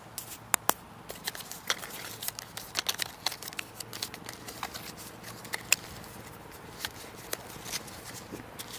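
Small paperboard box being opened by hand: flaps and the cardboard insert pulled open, with paper and plastic packaging rustling and crinkling in many small, sharp clicks and crackles.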